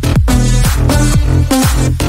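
Electronic dance music with a steady beat of bass hits that fall in pitch under held synth chords.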